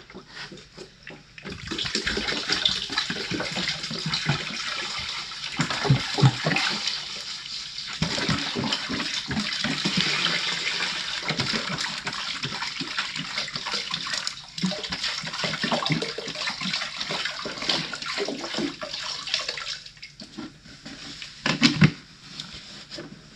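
Windshield washer fluid poured from a jug into a plastic bucket: a steady splashing stream that starts a second or two in and stops a few seconds before the end, with a few knocks from handling.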